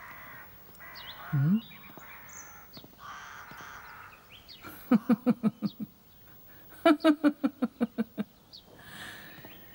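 A woman laughing in two short bursts of quick 'ha-ha-ha' pulses, the second burst higher-pitched, after a brief rising 'hm' about a second and a half in.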